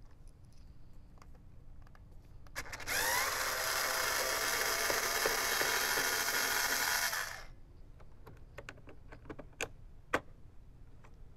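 Black+Decker cordless electric screwdriver running for about five seconds, starting a few seconds in, its motor whine rising as it spins up, backing out a Torx 30 bolt. A few light clicks follow after it stops.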